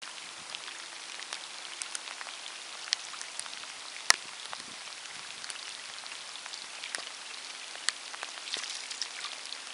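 Steady rain falling on a river, an even hiss with scattered sharp taps of drops striking close by, the sharpest about four seconds in.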